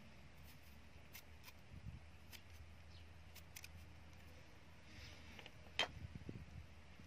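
Faint, crisp clicks of a cleaver slicing chunks off a cucumber held in the hand, the pieces dropping into a plastic bowl, with one louder click near the end, over a low steady hum.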